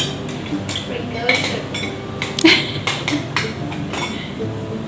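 Glass Petri dishes and their lids clinking against one another and the steel work surface as they are opened, filled with potato dextrose agar and closed, a scatter of light separate clinks over a steady hum.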